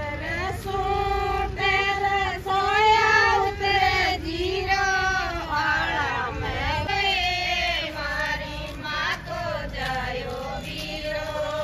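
A group of women singing a Rajasthani wedding folk song together, with long, drawn-out notes that rise and fall.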